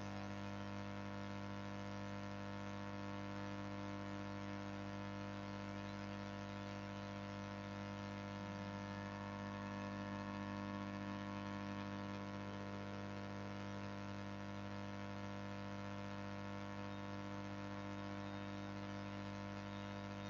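Steady electrical hum with a faint hiss, unchanging throughout; no distinct sound events.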